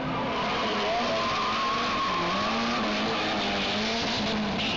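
Lancia Delta HF integrale's turbocharged four-cylinder engine running at high revs, its pitch wavering up and down, with tyres squealing as the car spins donuts.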